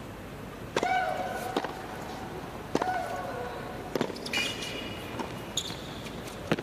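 Tennis rally on an indoor hard court: sharp racquet-on-ball strikes and bounces every second or so. The first and third strikes each come with a player's loud shriek that falls in pitch. A brief high squeak comes about halfway through.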